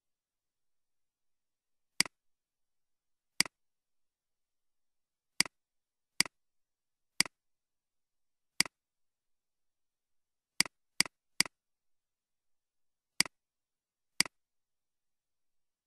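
Computer mouse clicks: eleven short, sharp clicks at uneven intervals, including a quick run of three about two-thirds of the way through, with dead silence between them.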